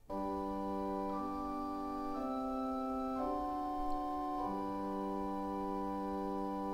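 Pipe organ playing a gentle, slow chord progression on soft flute stops sounding together as a chorus. Held chords change about four times in the first few seconds, then one chord is sustained.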